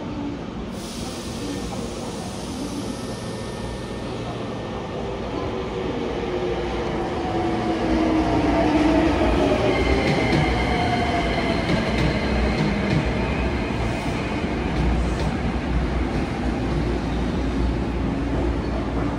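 Hankyu 9300 series electric train pulling into the platform, its rumble growing louder as it draws alongside. About halfway through its motors whine down in pitch while it slows, with a thin high ringing tone from the running gear.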